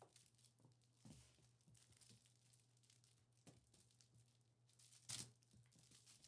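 Near silence: room tone with a faint steady hum, broken by scattered faint rustles and soft taps, with a brief louder rustle about five seconds in.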